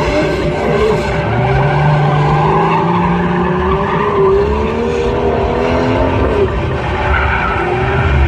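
Drift car sliding with its engine revving up and down and its tyres skidding on the tarmac. The engine climbs in pitch about two seconds in.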